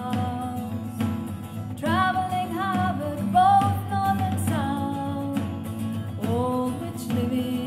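A woman singing over acoustic guitar, played back through a B&O Beoplay S3 wireless speaker and picked up in the room.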